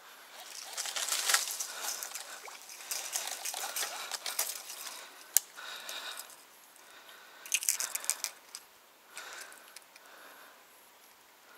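Close rustling and crunching from brush and grass as the angler moves on the bank, in irregular bursts, with a few sharp clicks, one loud one about halfway and a quick cluster later.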